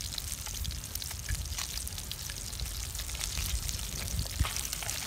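Small whole fish frying in oil in a metal wok, a steady sizzle with many scattered crackles and pops.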